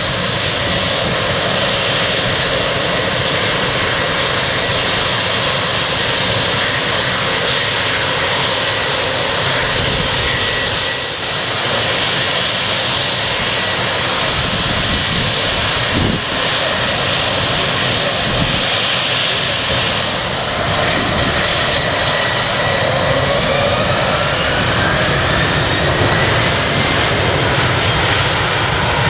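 Airliner engines running loudly and steadily, with a whine that rises in pitch over the last third.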